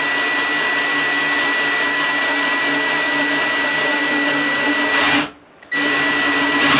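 18-volt cordless drill running steadily with a whine as its twist bit bores through a fibreglass-laminated EPS foam board. It stops about five seconds in, then runs again half a second later.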